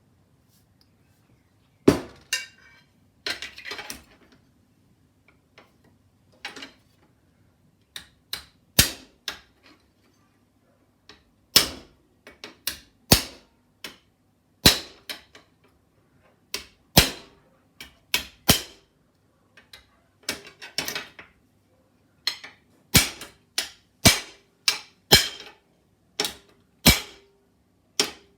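Hammer blows striking a thin 1 mm sheet-metal strip to bend it: sharp single strikes at an uneven pace, roughly one every second or two, beginning about two seconds in.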